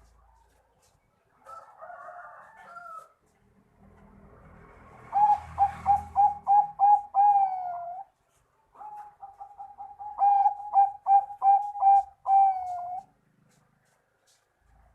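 Zebra dove (Bangkok-type perkutut) singing: two songs, each a quick run of short staccato coos ending in one long drawn-out note, after a softer call about two seconds in.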